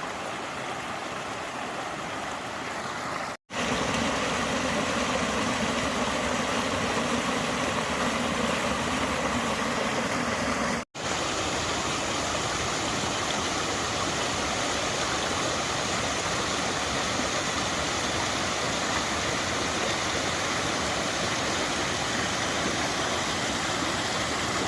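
A stream running in a wooded hollow, a steady rush of water without pause. It drops out briefly twice, and the later stretches are a little louder.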